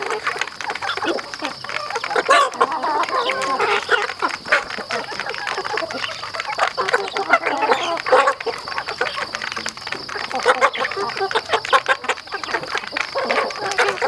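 A flock of young chickens feeding at a plastic trough: many quick beak taps on the trough mixed with clucking calls.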